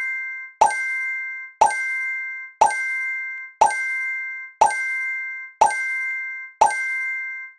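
A countdown timer's sound effect, once a second: a short pop followed by a ringing chime of a few steady tones that holds almost until the next pop. Seven in a row.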